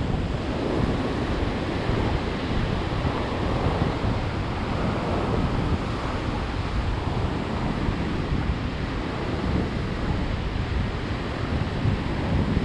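Ocean surf breaking and washing up a pebble beach in a steady rush that swells and eases, with wind buffeting the microphone.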